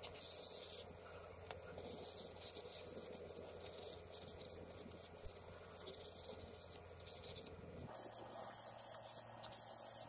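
Aerosol brake cleaner spraying onto a car's brake disc and hub in short hissing bursts: one at the start lasting under a second, then a run of several quick bursts near the end.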